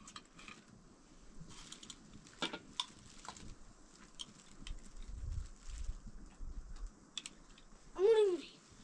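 Scattered light clicks and taps, then near the end one short, loud pitched call that rises and falls, an animal-like cry.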